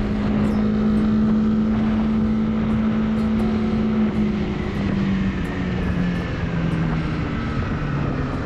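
Honda CB300R's single-cylinder engine running steadily under wind and road noise. From about four seconds in, its note falls in several steps.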